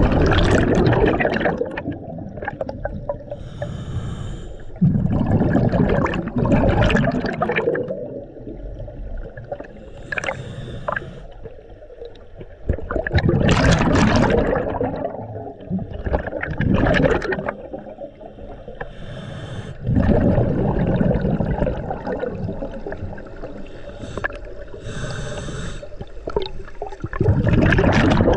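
Scuba diver breathing through a regulator underwater, recorded through the camera housing: about six gurgling bursts of exhaled bubbles, each a second or two long, with a thinner hiss of the regulator on the inhale between some of them.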